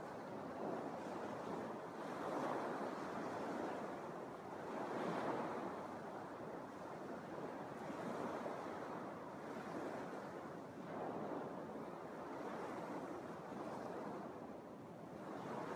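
Small Lake Michigan waves washing onto a sandy beach, a soft hiss that swells and falls back every two to three seconds, with some wind on the microphone.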